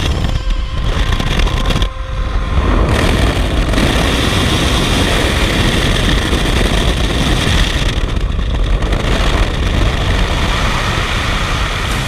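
Loud, steady rush of wind at the open door of a skydiving jump plane in flight, mixed with the drone of the aircraft's engine, with a brief dip about two seconds in.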